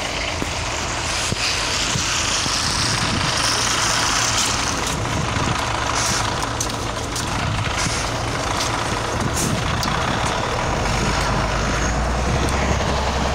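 Scania OmniLink CL94UB city bus's diesel engine running at a stop, with hisses of compressed air in the first half. Near the end the engine note grows louder as the bus pulls away.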